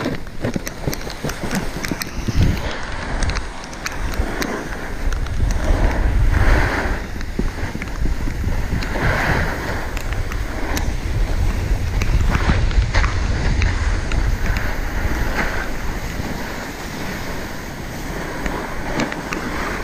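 Wind buffeting the microphone of a camera riding on a moving snowboarder, a steady low rumble, with the snowboard sliding and scraping over packed snow in swells of hiss a few seconds apart as it turns.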